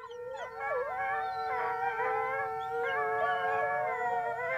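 A pack of wolves howling in chorus, several long overlapping howls at different pitches that slide up and down. It starts abruptly out of silence.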